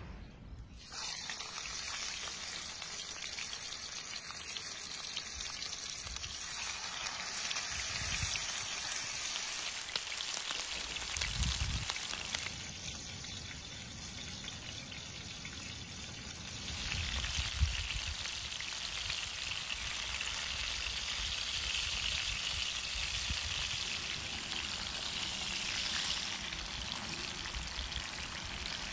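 Liver slices and cherry tomatoes frying in oil in a frying pan: a steady sizzle that grows louder a little past halfway, with an occasional low knock of the pan.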